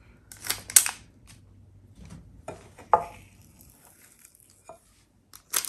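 Small metal cookie scoop scraping and clinking against a glass mixing bowl of firm dough, with its squeeze-handle release clicking as portions are dropped onto a parchment-lined baking sheet. A few sharp clicks come about a second in, about three seconds in, and near the end.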